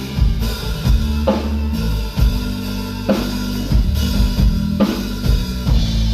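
Live band playing an instrumental stretch of a Thai pop ballad between sung lines, with the drum kit to the fore: a steady beat of bass drum and snare over sustained low bass notes.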